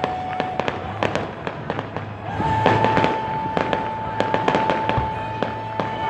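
Fireworks going off in many quick sharp cracks and pops. A steady high whistle comes in about two seconds in and holds to the end.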